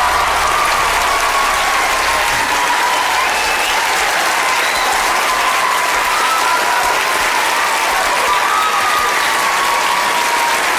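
Large audience in a tiered lecture theatre applauding steadily and loudly throughout.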